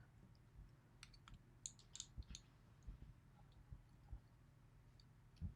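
Faint, scattered small metallic clicks of tweezers picking at a spool driver pin inside a Yale lock cylinder, working it loose.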